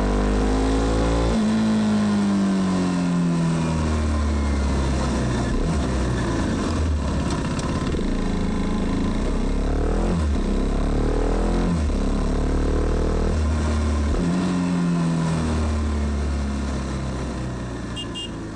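KTM Duke 390's single-cylinder engine on the move, its pitch repeatedly climbing under acceleration and dropping back as it shifts or slows. The sound fades out near the end.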